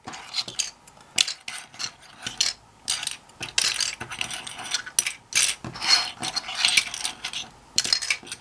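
Plastic keycaps clicking and clattering as they are handled and pressed onto a keyboard's switches, in quick irregular clusters of short, sharp clicks.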